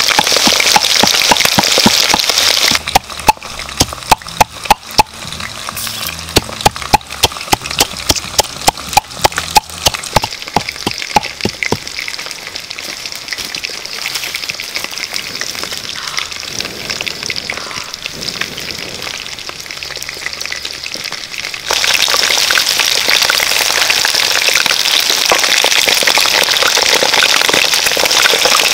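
Quail frying in hot oil in a wok, with a loud, dense, steady sizzle. From about three seconds in until near the last quarter, the sizzle drops quieter and is broken by many sharp crackles and pops, densest at first. The full, loud sizzle then returns.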